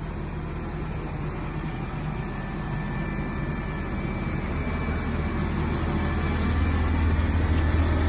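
Engine of a truck-mounted crane running steadily under load while hoisting a floating dock, a low hum that grows gradually louder.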